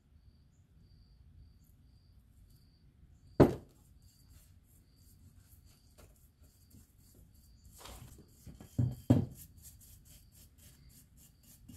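Quiet handling at a workbench while paint stripper is brushed onto small diamond-plate floor pieces: one sharp knock about three and a half seconds in, then soft brush strokes and two knocks near the end as a plate is moved. A faint high chirp repeats throughout.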